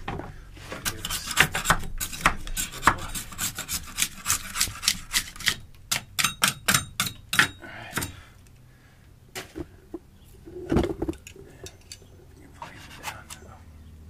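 A hand scraper shaving cured spray foam insulation off a wall: a rapid series of rasping scrapes, several a second, for about eight seconds. It pauses, then a few more strokes come near the end.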